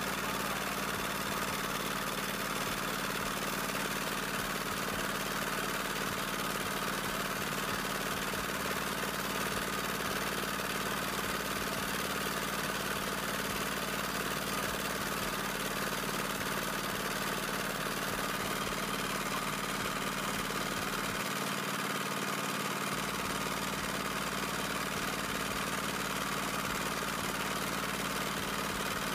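A small engine running steadily at an even speed, a constant drone with no change in pitch or level.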